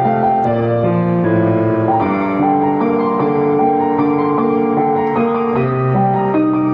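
Background music: a slow, gentle keyboard piece, sustained piano-like chords with a simple melody changing about once a second.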